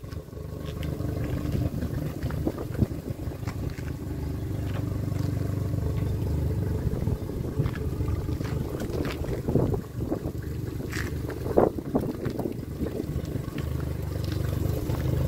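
Low, steady rumble of wind on the microphone, with a few light knocks scattered through it.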